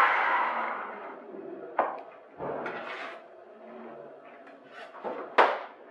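A hand block rubbed across the dry gesso (levkas) surface of a wooden icon board to level it, the scraping rub fading out over the first second or so. Then light handling noises and a sharp wooden knock about five seconds in.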